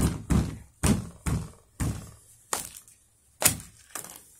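A socked foot stamping down again and again on a wooden pallet and the small boxed items lying on it: a series of about eight dull thumps, unevenly spaced.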